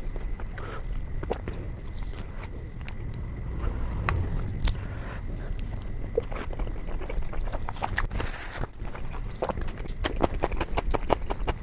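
Close-miked chewing and mouth sounds of someone eating paneer butter masala with flatbread: irregular wet clicks and smacks, with a short rustle about eight seconds in.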